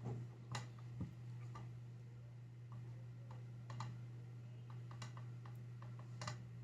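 Scattered light clicks and taps of small plastic and metal parts being handled while a massage gun is put back together, over a steady low hum.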